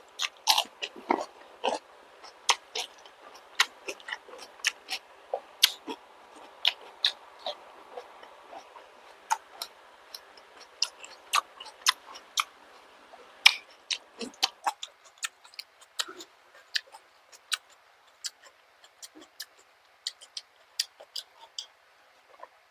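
Close-miked chewing of balut (fertilized duck egg) with vegetables: wet mouth clicks and lip smacks at irregular intervals, thinning out after about fifteen seconds.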